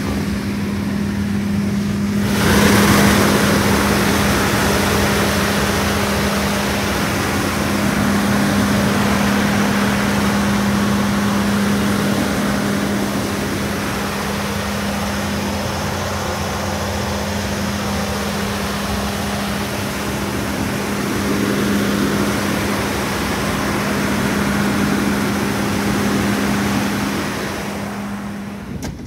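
Caterpillar XQ400 diesel generator set running steadily under its governor, with a constant hum. About two seconds in, the engine sound gets suddenly louder and fuller as the enclosure door is opened onto the engine, and near the end it drops back as the door is closed.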